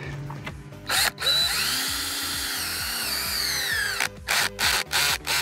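Cordless drill driving a self-drilling screw through a fiberglass (FRP) sleeve into a wooden utility pole: about three seconds of continuous drilling, its motor whine wavering and dropping in pitch as it ends, then several short bursts of the drill.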